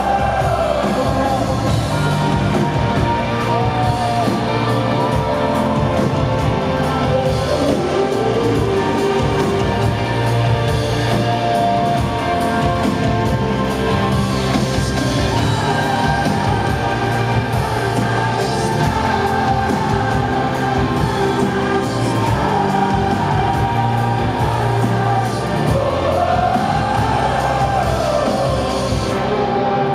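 Live rock band music with a sung melody that rises and falls in long phrases and a choir-like mass of voices that sounds like the audience singing along.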